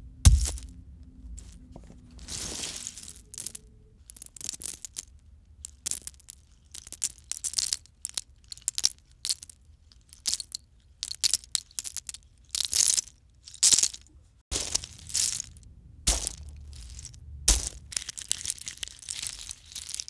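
Broken acorn shells being crunched, scooped and dropped in a deadened space, giving an irregular run of dry crunches, rattles and clatters. A heavy thud from a stress ball dropped onto the pile comes just after the start, with two more heavy thuds near the end. The recording was made a little hot, so the loudest crunches sound slightly clipped.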